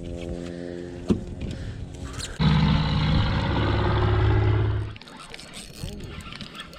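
Boat motor running with a steady hum, growing louder and rougher about two and a half seconds in, then dropping off sharply near the end.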